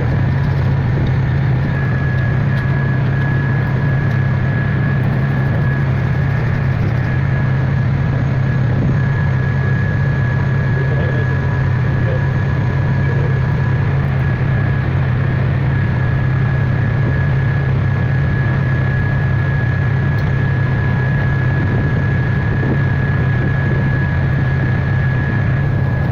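Lister TS air-cooled diesel engine running steadily at constant speed, a low engine note with a thin, steady high whine over it.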